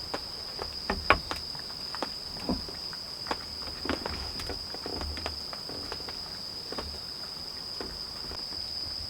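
A steady high-pitched insect trill with irregular drips and taps of rain falling on the tent and tarp.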